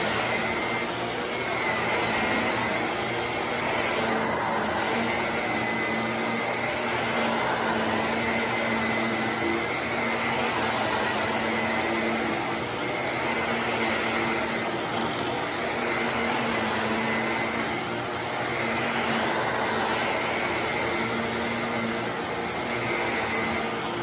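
Shark upright vacuum cleaner running on carpet, a steady motor drone that swells and eases slightly as it is pushed back and forth.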